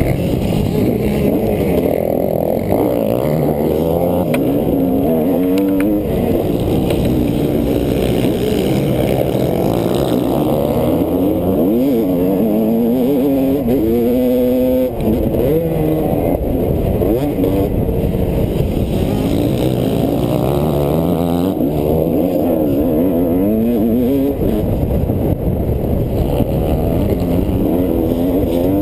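On-board sound of a motocross dirt bike's engine under racing load, revving up and dropping back over and over as the rider accelerates, shifts and backs off through the track's straights, hills and jumps.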